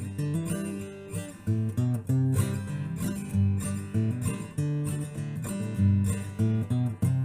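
Background music: strummed acoustic guitar playing a steady rhythmic tune.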